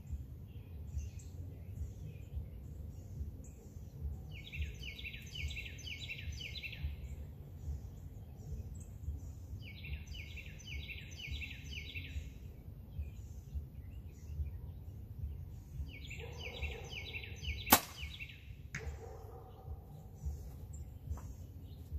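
A single release of an Obsession Defcon HZ7 hybrid-cam compound bow near the end: one sharp, loud snap, followed about a second later by a fainter knock. Songbirds trill in repeated bursts throughout.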